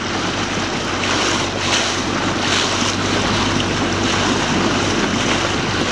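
Motorboat under way: a steady engine hum under rushing water and wind buffeting the microphone.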